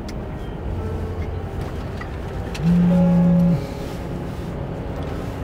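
A car horn sounds once, a low steady note held for about a second, over the low rumble of a car on the move.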